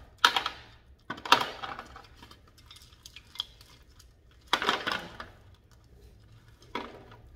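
Gravel potting mix clinking and rattling against a clay pot and a plastic tray as an orchid's roots are worked loose from it, in about four short bursts.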